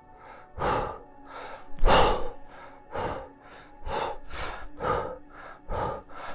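A man breathing hard through kettlebell push-press reps: a string of short, sharp breaths, about one a second, in time with the lifts. He breathes in as the bell goes up and out as it is caught.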